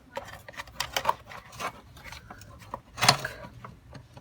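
Small metal clicks and clinks of hand tools and loose parts being handled while a petrol brush cutter's engine is dismantled, with a louder knock about three seconds in.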